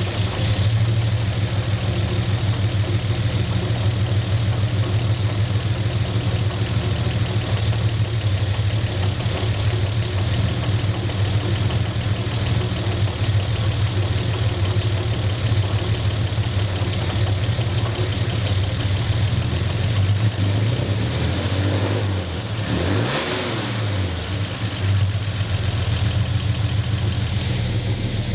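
Chevrolet inline-six with twin carburetors running at a steady idle just after starting. About three-quarters of the way through, its speed briefly dips and comes back up.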